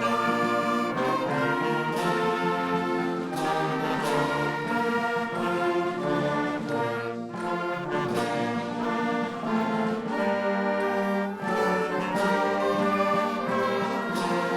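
Band music led by brass, trumpets and trombones playing slow, held chords that change every second or so.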